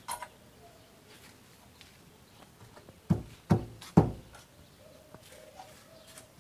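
Thin steel sheet knocking against a steel frame as it is laid in place: three sharp knocks about half a second apart, a little past the middle.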